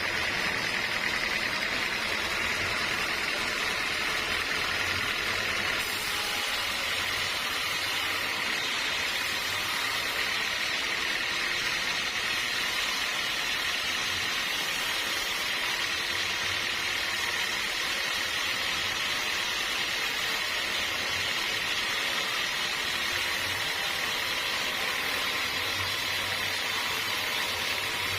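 Sawmill machinery running steadily, a continuous even machine noise with a slight shift in tone about six seconds in.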